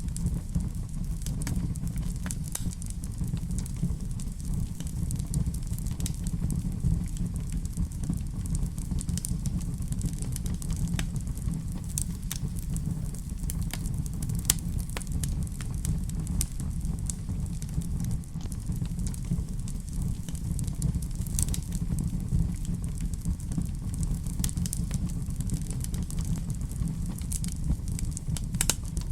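Fireplace fire burning with a steady low rumble and scattered sharp crackles and pops.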